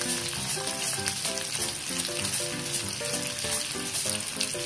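Milkfish pieces and miso frying in a pot, with a steady sizzle and crackle. A faint tune of steady notes runs underneath.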